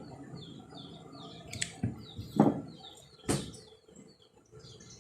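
Small birds chirping over and over in short, repeated falling peeps, about two or three a second. Several sharp knocks or clatters cut in, the loudest about two and a half seconds in.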